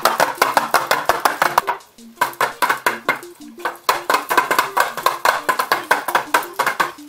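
Homemade paper-plate pellet drum being twirled back and forth, its dried pasta-tube pellets on strings striking the plates in fast, dry clicking rattles. The rattle breaks off briefly twice, about two seconds and three and a half seconds in, over a background tune.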